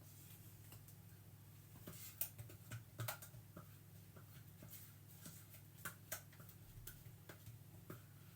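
Faint scattered clicks and scrapes of cake batter being scraped out of the food processor bowl into the cake tins, over a low steady hum.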